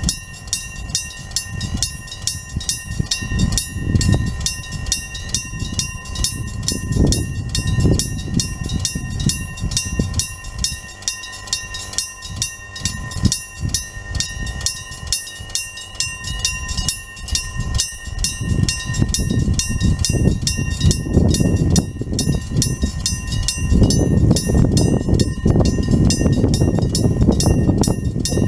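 A railway level crossing's electric warning bell ringing with rapid, even strikes while a train passes, its rumble swelling loudest near the end.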